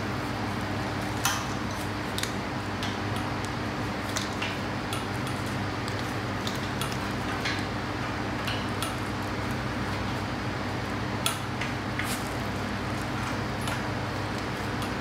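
Scattered light metallic clinks and taps as the metal tubes of a laundry rack frame are handled and fitted together, over a steady low fan hum.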